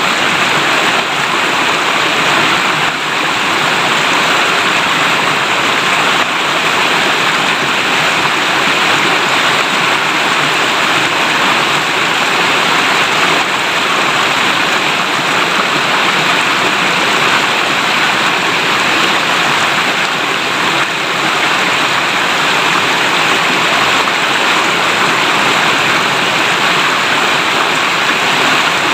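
River water babbling as it flows, a steady, unbroken rush of running water.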